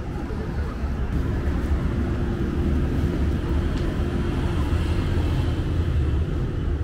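Steady low rumble of city street noise, with a faint steady hum running through most of it.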